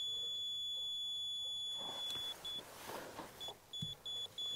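Laser level receiver sounding one steady high beep for about two seconds, its on-grade signal that the reading is at zero on the laser plane. Then, from about three seconds in, it breaks into short beeps about three a second as it reads slightly off the plane. A few soft knocks from handling come in between.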